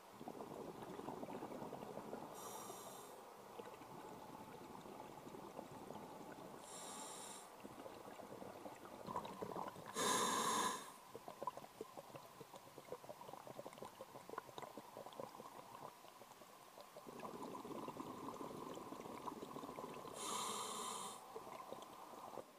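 A scuba diver breathing through a regulator underwater: a steady bubbling crackle, broken by four short hissing breaths. The loudest breath comes about ten seconds in.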